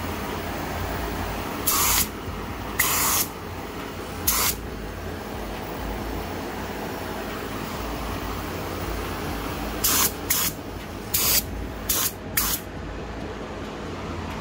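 Paint spray gun laying candy green paint with gold pearl onto a hard hat in short trigger bursts of hiss: three spaced bursts, then five quick ones close together near the end. A steady low hum runs underneath.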